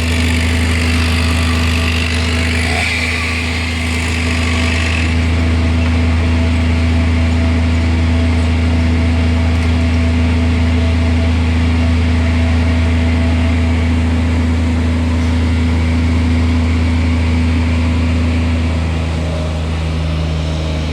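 An engine running steadily at constant speed, with no revving. A higher hiss over it fades out about five seconds in.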